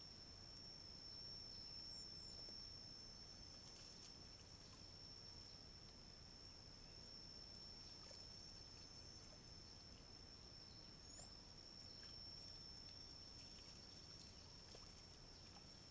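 Near silence: faint outdoor ambience under a thin, steady high-pitched whine, with a couple of brief faint chirps.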